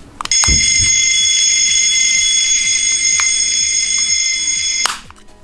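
Miniature capsule-toy fire alarm pressed with a click, then sounding a loud, steady electronic alarm-bell ring for about four and a half seconds before cutting off suddenly. Background music plays underneath.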